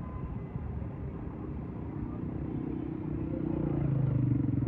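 Street traffic rumbling, with a motor vehicle's engine growing louder as it comes close, loudest near the end.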